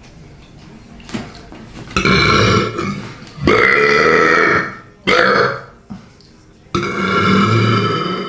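A person belching loudly four times in a row, each a long, rough, pitched burp; the longest lasts about a second and a half.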